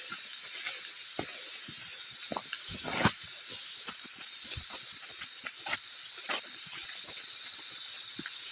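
Footsteps on the jungle floor, with irregular crunches and snaps from leaf litter and twigs, the loudest about three seconds in, over a steady high hiss of forest ambience.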